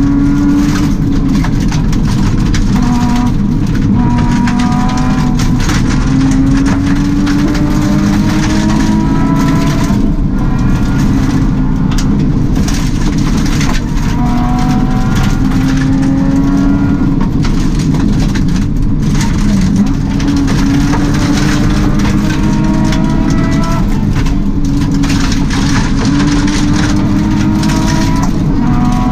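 Subaru rally car's engine heard from inside the cabin at full throttle, its revs climbing through the gears again and again with a brief dip at each upshift. Steady tyre and gravel road noise runs underneath.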